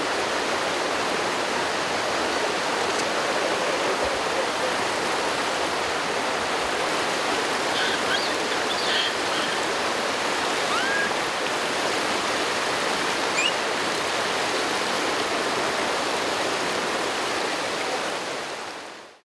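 Steady rush of flowing water, with a few faint short chirps around the middle. It fades out near the end.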